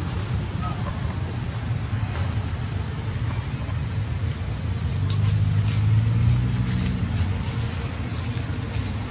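Steady low rumble of road traffic, with a vehicle engine's hum swelling louder for about two seconds in the middle.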